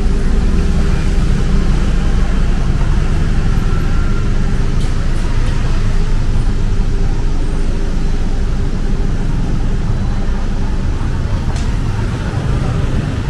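Steady street traffic noise: motor vehicles running past, with a heavy low rumble.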